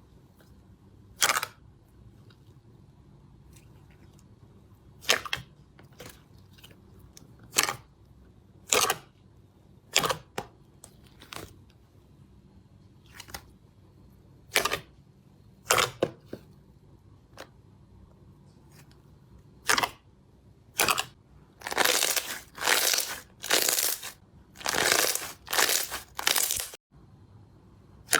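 Slime being pressed and stretched by hand, giving short sharp pops and crackles of trapped air. They come singly every second or two at first, then in a quick run of longer, wetter squelches near the end.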